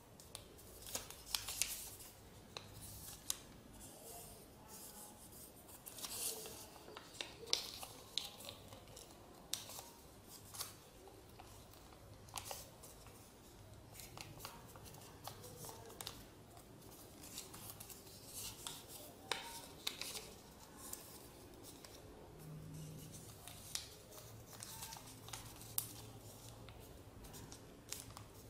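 Sheet of printer paper crinkling and rustling between the fingers as an origami crane is shaped and its wings are pulled apart, in irregular sharp crackles.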